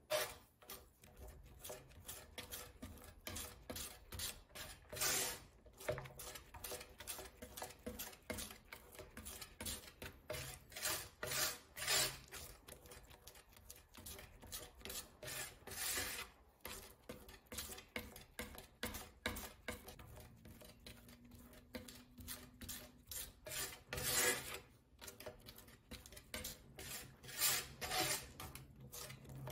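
Metal palette knife scraping and smearing thick, wet watercolor paste across a glass slab in repeated strokes, with a few louder, sharper scrapes. This is the paint being mixed and worked smooth.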